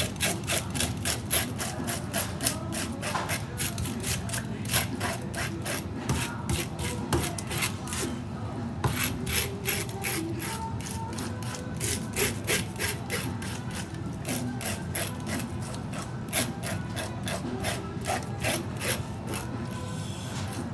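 Hand fish scaler scraping scales off the skin of a whole saithe (lieu noir) in quick repeated strokes, about four a second, with a short pause about eight seconds in.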